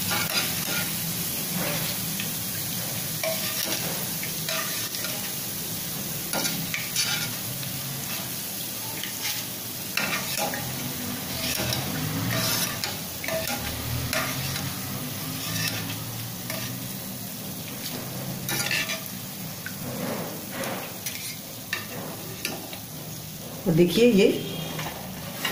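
Boondi (gram-flour drops) frying in hot oil with a steady sizzle. A metal slotted ladle and a wire skimmer scrape and tap against the pan again and again as the fried boondi is scooped out.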